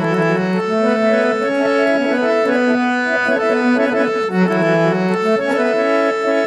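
Harmonium playing an instrumental interlude of a Gojri folk song. A melody of held reedy notes steps up and down over a note that keeps sounding.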